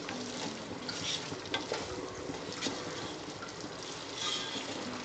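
Chicken pieces in curry masala frying and sizzling in a pan as they are stirred, with the spatula scraping and clicking against the pan now and then. The chicken's own liquid has cooked off, so the masala is frying in the oil.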